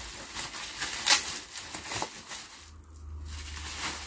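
Bubble wrap crinkling and rustling as it is pulled off a packaged bamboo laptop stand, in irregular crackles with the sharpest about a second in. A low rumble of handling near the end.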